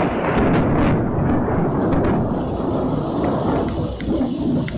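Thunder rumbling over steady rain, loudest in the first two seconds and then easing. A few drops tick near the end.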